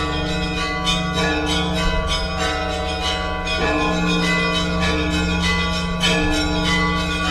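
Russian Orthodox church bells ringing together: small bells struck in quick succession over the lingering ring of deeper bells, the strikes following each other without a break.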